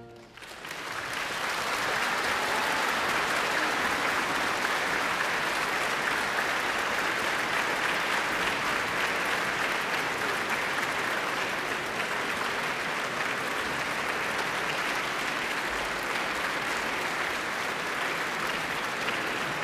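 A large concert-hall audience applauding, building over the first second or two and then holding steady.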